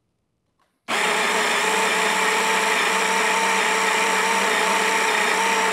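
Baratza Sette 30 conical burr espresso grinder switching on about a second in and running a timed five-second grind: a steady, even motor whine with several fixed tones over the rush of beans being ground.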